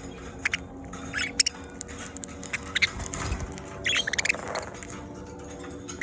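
Budgerigars chirping in short, high, scattered calls with small clicks, as they eat during hand-feeding.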